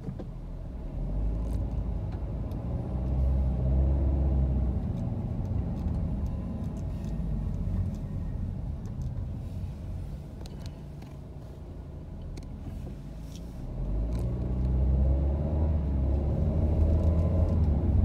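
Car engine and road noise heard from inside the cabin, the engine note rising and swelling twice as the car drives off in city traffic, with a few faint clicks.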